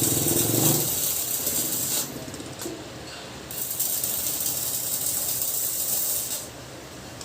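Stick (MMA) welding arc from an Ingco ING-MMA3202P inverter welder crackling and hissing in two runs: one until about two seconds in, then another from about three and a half seconds until near the end.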